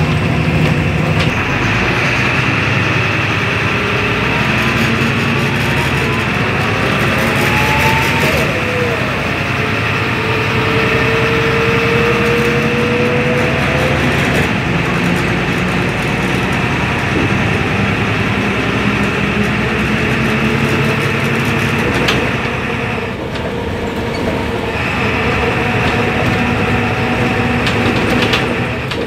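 Cabin sound of a 2001 MAN NL222 low-floor city bus under way: the rear-mounted diesel engine runs steadily, with a rising whine as the bus picks up speed. The engine eases off briefly about three-quarters of the way through, then pulls again.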